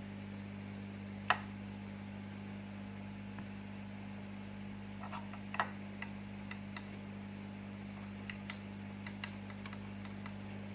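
Scattered light clicks and taps of small parts as an Oppo F1s smartphone is handled and closed up on a repair bench, over a steady electrical mains hum. The clicks come singly and in small clusters, the loudest about a second in.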